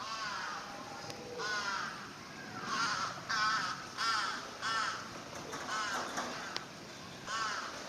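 A crow cawing repeatedly: about eight short caws, a few closer together in the middle.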